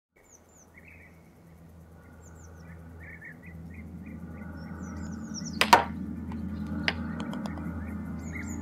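Small birds chirping over a low steady hum, fading in from quiet. A little past halfway comes a single sharp knock of a mini-golf putter striking the ball, followed about a second later by a lighter click.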